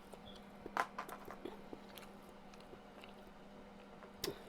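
Close-miked eating sounds: soft mouth clicks and smacks, with a louder sharp one about a second in and another near the end, over a faint steady hum.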